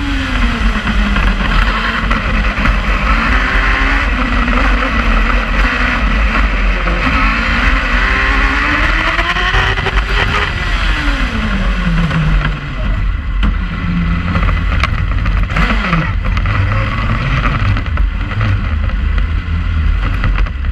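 Open-wheel single-seater racing car's engine, heard from the cockpit, revving hard with its pitch climbing and dropping at each gear change. Just past halfway the revs fall sharply as the car slows after the finish line, and the engine then runs at low revs.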